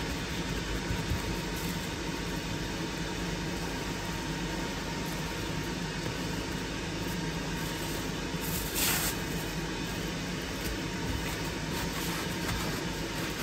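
Steady mechanical hum and hiss throughout. About nine seconds in there is one brief rustle of paper towel being pressed and rubbed on raw steak over plastic wrap.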